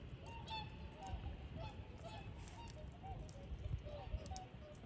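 A flock of swans calling, many short honking calls overlapping several times a second.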